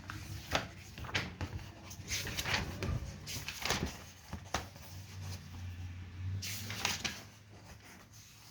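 Pages of a paper book being leafed through and handled: a run of short papery swishes and soft knocks, roughly one a second and irregular.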